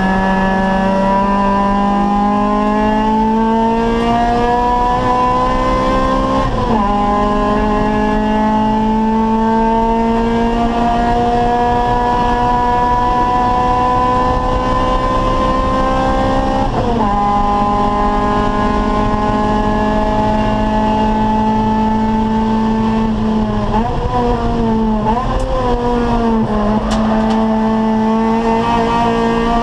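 Acura Integra race car's four-cylinder VTEC engine running hard under full throttle, its pitch climbing steadily through each gear and dropping sharply twice, about 7 and 17 seconds in, as it shifts up. Between about 24 and 27 seconds the revs dip and jump a few times as it slows and downshifts, then climb again.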